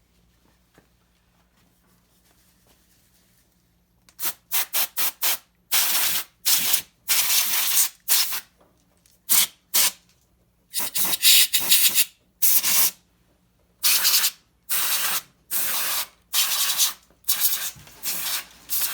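Air sprayed in short hissing blasts, about fifteen in quick succession, starting about four seconds in, as dust is blown out of the dryer's timer and control panel.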